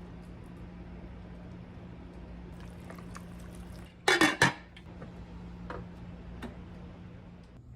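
A short clatter of several sharp knocks about four seconds in, over a steady low hum, with a few faint clicks afterwards.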